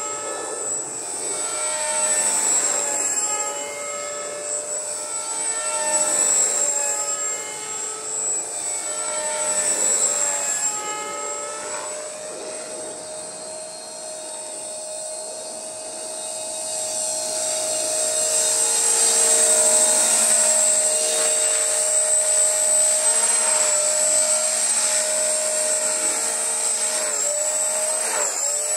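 Walkera V450D03 electric RC helicopter in flight: a continuous whine of its brushless motor and rotors, with a steady high tone over a set of pitches that glide up and down as it manoeuvres and passes. It fades a little around the middle and grows louder again in the second half.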